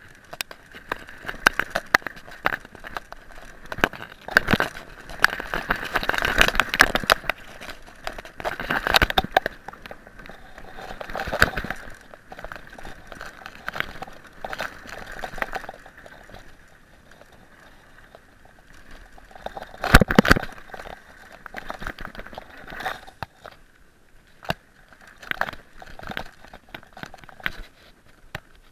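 Mountain bike ridden along a dry dirt trail: tyres crunching over gravel and leaf litter, and the bike rattling and knocking over bumps, with the loudest jolts about twenty seconds in.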